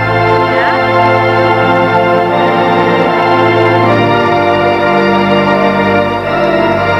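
Robert Morton theatre pipe organ playing loud sustained chords over a held bass pedal note. The bass note and the harmony change about four seconds in.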